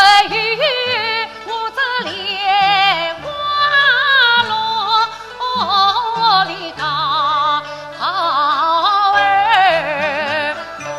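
Yue opera aria: a solo voice sings a slow, ornamented line with heavy vibrato over instrumental accompaniment with held low notes.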